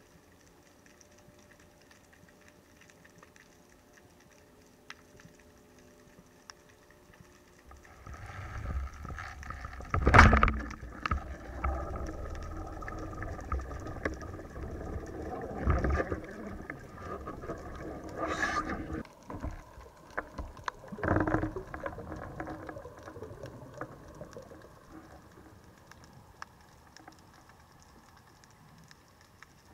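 Underwater: a faint crackling background, then rushing water noise and a sharp, loud crack about ten seconds in, the shot of an LG Revolution 102 oleopneumatic speargun. Several more knocks and bursts of water noise follow while the shaft is out on its line, dying away over the last few seconds.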